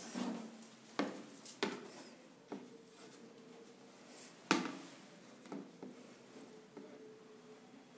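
Ruler and marker handled on a paper-covered drawing board: several sharp taps and clicks as the ruler is set down and lined up, the loudest about four and a half seconds in.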